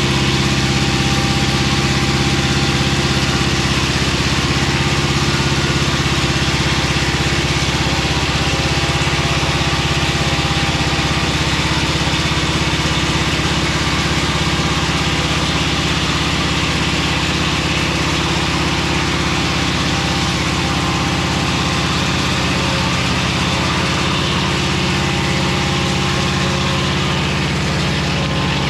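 Mobile Dimension circular-blade sawmill running steadily, its engine a constant drone with a dense high hiss over it.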